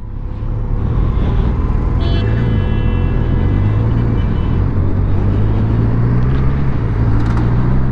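Kawasaki Versys 1000's inline-four engine running at low revs as the bike rolls slowly through traffic, heard from the rider's seat, with street traffic noise around it. A brief high tone sounds about two seconds in.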